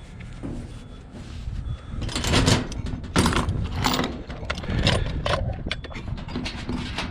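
Metal objects clanking and clattering as they are handled, in a run of irregular knocks from about two seconds in, over a low steady rumble.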